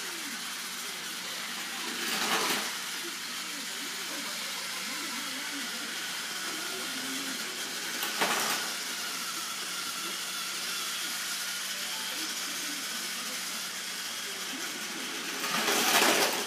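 Steam locomotive hissing steadily, with three louder bursts of escaping steam about 2 s in, about 8 s in, and near the end.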